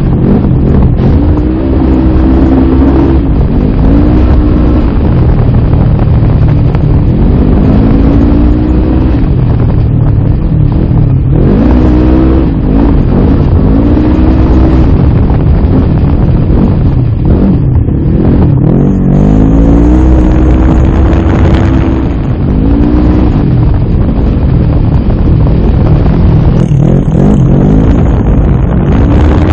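Polaris RZR side-by-side engine running hard at high revs. Its pitch climbs and drops again and again as the throttle is worked on and off. Wind and dirt buffet the onboard microphone.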